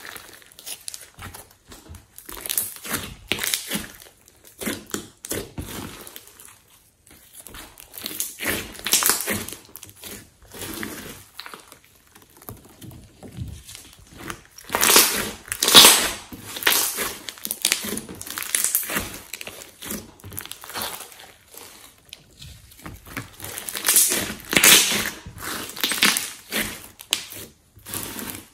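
Hands squeezing, stretching and pulling apart a large lump of slime mixed with clay and foam beads, making crackling, crinkly squishes. They come in bursts, loudest about halfway through and again near the end.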